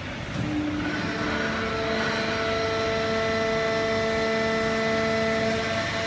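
A fully automatic horizontal hydraulic baler running: a steady mechanical drone with several steady whining tones layered over it, growing a little louder about half a second in.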